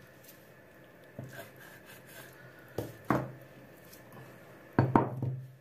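Kitchen knife cutting hake into pieces on a cutting board: several knocks of the blade against the board, the loudest pair near the end, with faint rubbing between.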